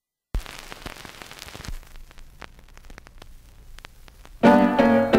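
A 45 rpm vinyl single starting to play. The needle meets the lead-in groove with a thump, followed by quiet surface hiss and scattered crackles and pops. About four seconds in, the record's intro music comes in loudly.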